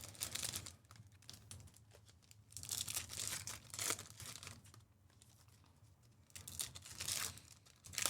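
Panini Donruss baseball card pack wrappers being torn open and crinkled by hand, in irregular bunches of tearing and crackling.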